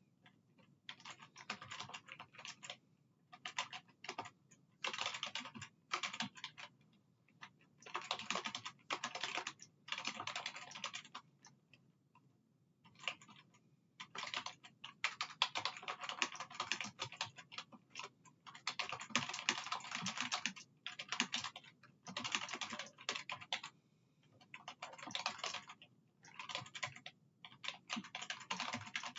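Typing on a computer keyboard: runs of rapid keystrokes lasting a second or a few seconds, broken by short pauses.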